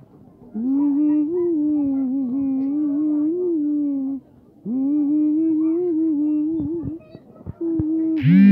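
A person humming a slow tune in long held notes, in phrases of a few seconds with short breaks. Near the end a short rising tone sounds, louder than the humming.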